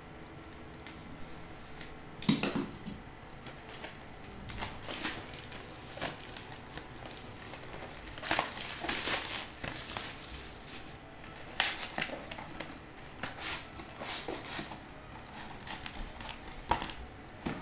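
A cardboard retail box being handled and opened: irregular rustling, scraping and crinkling of cardboard and packaging, with a louder knock about two seconds in and a longer rustle around eight to nine seconds.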